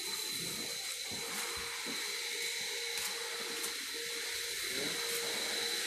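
A steady hiss with a thin, constant high whine from machinery running without pause at a car wash.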